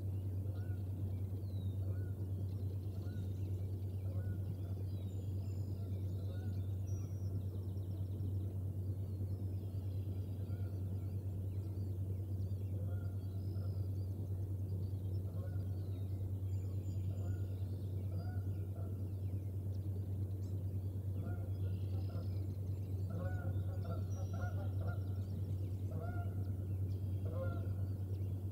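Birds calling: short repeated pitched calls that come thicker in the second half, over scattered higher chirps and a steady low hum.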